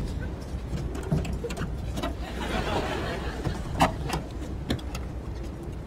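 Keys rattling and clicking against the car door lock of a Mini, with several sharp metallic clicks, the loudest about four seconds in, over a steady low rumble.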